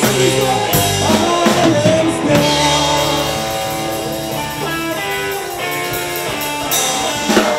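Live blues-rock band playing: a Stratocaster-style electric guitar out front over drums.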